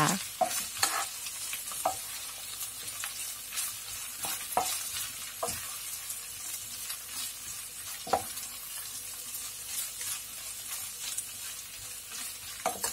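Green beans and beef mince sizzling in a non-stick frying pan as they are stirred with a wooden spatula: a steady sizzle with scattered scrapes and taps of the spatula against the pan.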